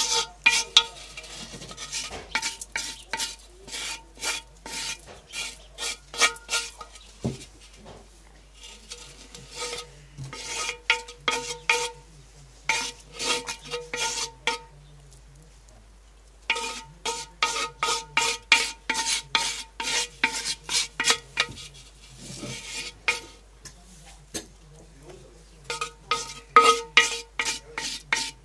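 A wooden spoon scrapes around the inside of an unglazed clay pot, spreading pork lard over the wall in quick strokes, several a second. The pot rings faintly with each stroke. The strokes come in runs, broken by short pauses.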